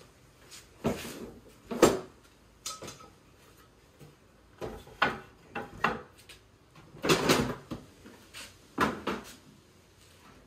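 Wooden board and camp gear knocking and clattering against a hard plastic storage tote as they are lifted out and set in place: a scatter of separate knocks, the loudest about two seconds in, and a longer rattle about seven seconds in.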